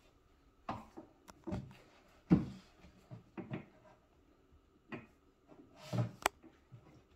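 Babies' hands knocking and bumping about inside the cubbies of a cube shelf: a series of separate short knocks and thumps, the loudest a little over two seconds in, with a sharp click near the end.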